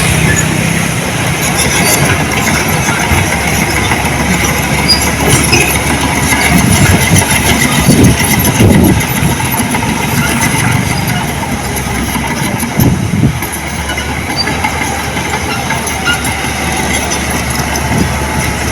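Heavy earthmoving machinery's diesel engine running loudly, with steady metallic rattling and clanking, and deeper surges in the engine note a few times.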